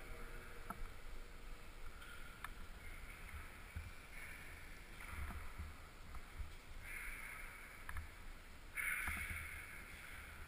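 Climber's movements on an indoor climbing wall, picked up through a helmet-mounted camera: scuffs and scrapes against the wall, with a few sharp light knocks from holds, over a low rumble from the helmet mount.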